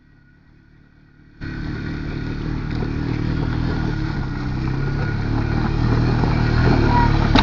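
ATV engine running hard under load as the quad climbs over rocks, coming in suddenly and loud about a second and a half in after a quiet start and growing slowly louder.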